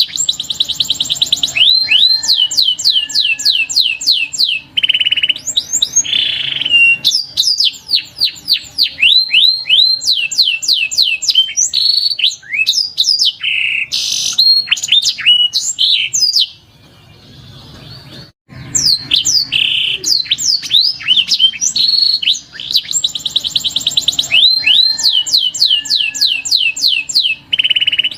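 Canary singing: fast rolling trills and swooping whistled notes, with a break of about two seconds a little past halfway.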